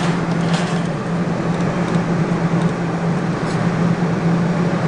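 Steady low electrical hum over constant mechanical background noise from a coin-op claw machine, with a few faint clicks.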